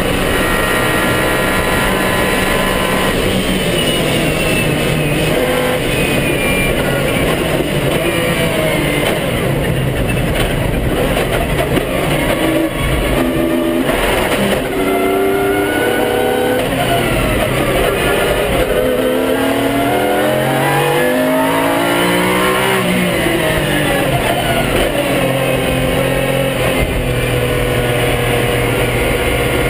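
Pagani Zonda R's Mercedes-AMG V12 at racing speed, its engine note rising and falling in pitch over and over as the car accelerates and changes gear, over steady wind and road noise.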